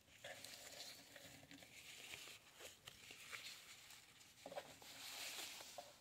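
Soft rustling and crinkling of tissue paper and thin foam wrap being handled and peeled back from a small item, with a few light ticks; the rustle is strongest near the end.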